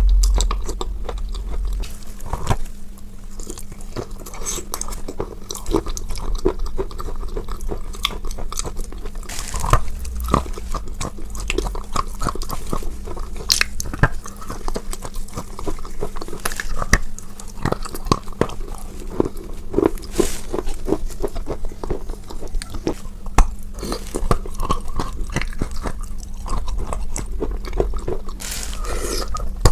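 Chalk with paste being bitten and chewed close to the microphone: a steady run of crisp crunches and crackles.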